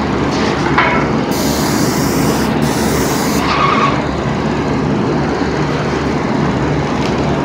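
Paint spray gun hissing as its trigger is pulled, from a little over a second in to about three and a half seconds in with a short break, over the steady running of the motor feeding the gun's air hose.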